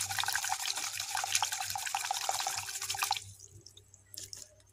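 Water splashing and dripping in a bowl as a hibiscus cutting is swished through it to rinse soil off its new roots. The splashing stops about three seconds in.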